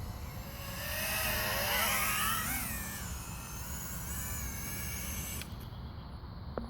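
FPV racing quadcopter's four brushless motors (Emax RS2205 2300kv) and 5-inch propellers whining, the pitch rising and falling as the throttle changes, loudest about two seconds in and dropping away near the end, over a low rumble.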